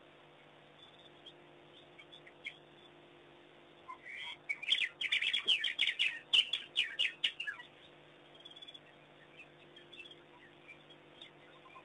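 African wild dogs twittering: a quick run of high, bird-like chirps that starts about four seconds in and lasts about three seconds, with a few scattered chirps before and after.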